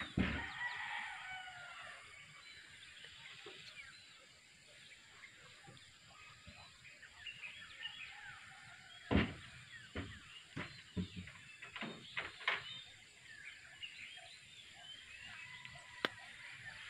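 Rural outdoor ambience: many small birds chirping and chickens calling, with a rooster crowing near the start. A few sharp knocks stand out in the second half.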